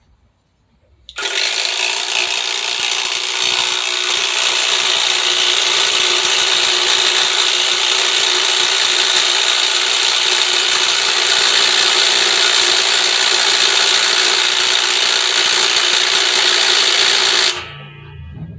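Hyper Tough 20V Max cordless impact driver hammering a lag bolt into a pre-drilled hole. It starts about a second in, runs without a break for some sixteen seconds as the bolt keeps going deeper, and stops near the end.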